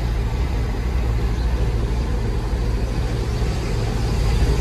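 Diesel engine of a heavy truck loaded with stone, running under way at low speed and heard from inside the cab as a steady low drone.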